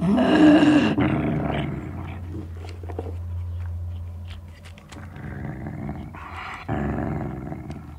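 Sealyham terrier growling over a bone: a loud growl right at the start, settling into a lower, quieter growl, then growling louder again near the end. Small clicks come between the growls.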